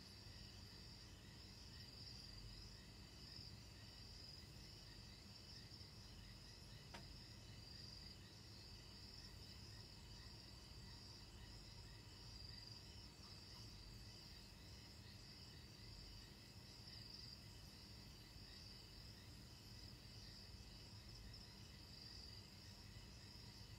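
Faint, steady high-pitched trilling of night insects, with a low hum beneath and one faint click about seven seconds in.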